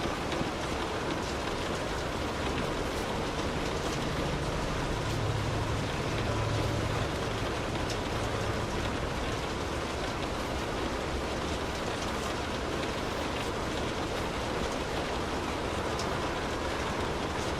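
Light rain falling on a car's roof and windows, heard from inside the car: a steady hiss with scattered small drop taps. A low rumble swells and fades about four to eight seconds in.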